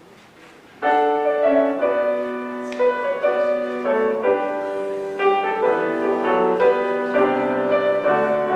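Piano music: after a short quiet moment, a loud chord comes in about a second in, and struck, fading notes and chords follow.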